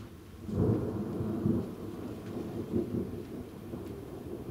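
Thunder: a sudden loud clap about half a second in, then a deep rumble that rolls on unevenly with further swells.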